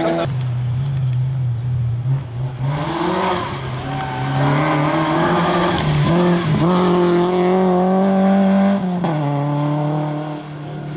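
Citroën Saxo rally car's engine holding a steady note, then revving hard as the car comes on at full throttle, with a short break in the note about six seconds in like a gear change. The engine note drops about nine seconds in as the car passes and pulls away.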